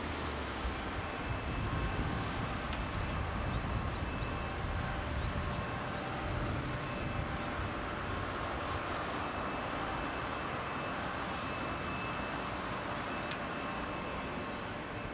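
Steady hum of distant shipyard machinery, carrying a few faint steady tones over an uneven low rumble. It is broken by a couple of faint ticks.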